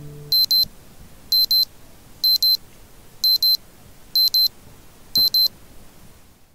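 Electronic beeper sounding short, high double beeps, one pair about every second, six pairs in all.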